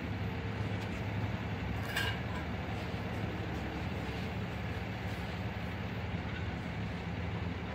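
Engine of a flatbed tow truck idling steadily, a low, even drone. A brief click sounds about two seconds in.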